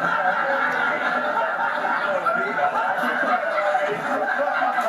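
A group of men laughing and chuckling together, steady and overlapping, heard through a television's speaker.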